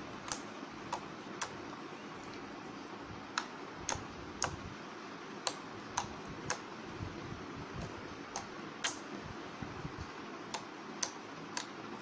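Over a dozen sharp, irregularly spaced clicks over a steady background hiss.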